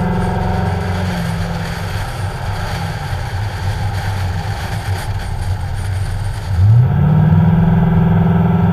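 Ford Mustang's engine on the move under heavy wind noise on the microphone. The engine eases off about a second in, then climbs in pitch and pulls again near the end.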